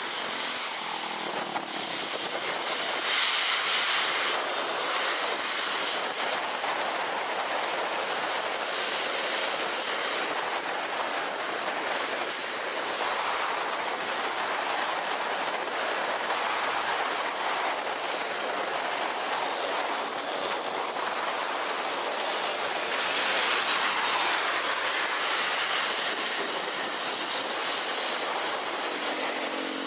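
Jet airliner engines running on a runway: a steady rushing noise, swelling a few seconds in and again past the middle, with a high whine rising near the end.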